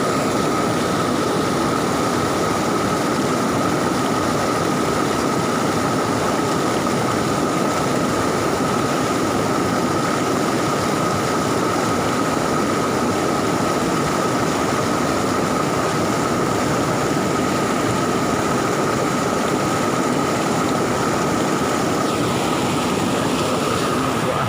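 Fast, swollen river water after a flood, rushing steadily, with a steady high-pitched tone over it.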